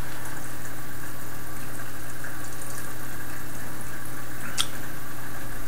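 Steady hiss with a constant low hum, and a single short click a little past halfway.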